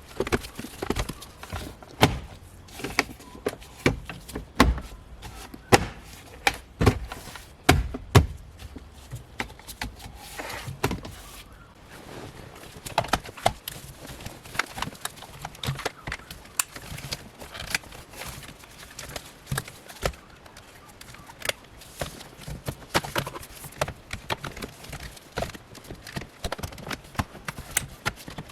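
Plastic centre-console trim panels being handled and pressed back into place: irregular knocks, clicks and thumps, the loudest in the first eight seconds or so.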